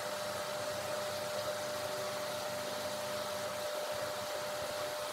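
Steady machine hum and hiss, a constant mid-pitched tone over an even rushing noise.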